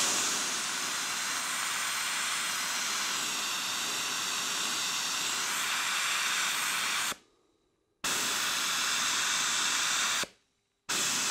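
Hand-held air-powered spot blaster hissing as it blasts abrasive onto the steel inner fender, stripping temporary rattle-can primer to get the metal clean. Three blasts, each starting and cutting off sharply: a long one of about seven seconds, then two shorter ones.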